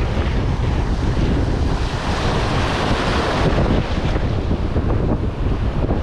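Surf washing over a shallow reef flat, with wind buffeting the microphone. The hiss of the wash swells about two seconds in and eases off a little past the middle.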